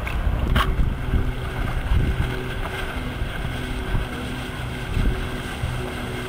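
Low, steady hum of a boat engine that keeps dropping out and coming back, under wind rumbling on the microphone. There is a sharp click about half a second in.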